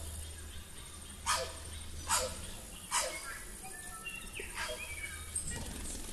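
A dog barking four times at uneven intervals, a single sharp bark each time.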